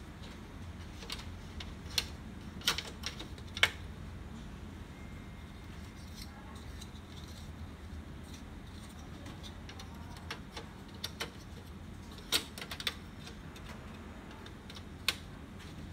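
Sharp clicks and clacks of hard plastic as a black plastic part from an HP LaserJet P3015 laser printer is handled and the printer's open rear is worked on. There are a few clicks about two to four seconds in, a pair around twelve seconds and a single one near the end, over a low steady hum.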